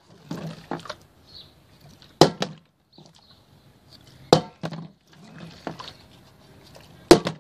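Plastic drink bottle with some water in it being flipped and hitting wooden deck boards: three sharp knocks about two seconds apart, with lighter clunks and handling sounds in between.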